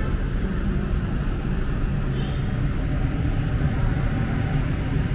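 Steady low rumble of city street traffic, with no single event standing out.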